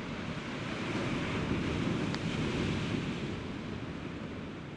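Sea surf on the rocks: a wave swells in, peaks about two seconds in and draws back, with wind rumbling on the microphone.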